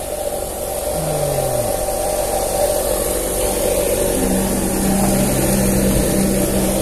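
An engine running steadily with a low hum; its pitch drops about a second in, and a steadier, slightly higher hum takes over from about four seconds in.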